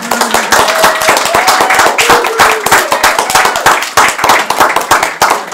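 A small group of people applauding, with the separate hand claps distinct and overlapping throughout.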